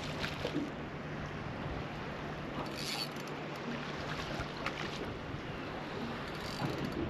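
Sea and wind noise on a small fishing boat, with a low steady hum underneath, a few light clicks, and a brief hiss about three seconds in.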